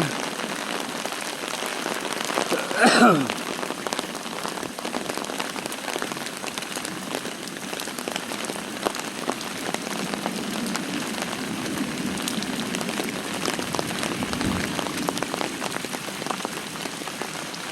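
Heavy rain pouring down, an even hiss dotted with the ticks of individual drops. About three seconds in, a brief louder sound slides steeply down in pitch.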